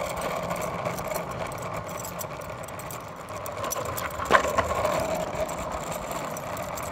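Longboard wheels rolling steadily over asphalt, a continuous rumble, with one sharp click a little past the middle.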